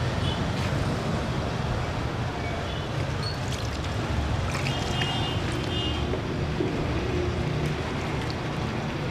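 A hand stirring and slapping thick wet peanut paste in a stainless steel bowl, with a few faint wet clicks, over a steady low rumble.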